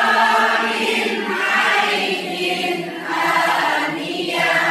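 A room of people reciting together in unison in a chant-like tone, long held phrases from many voices: a group drill reciting a Quranic verse for memorisation.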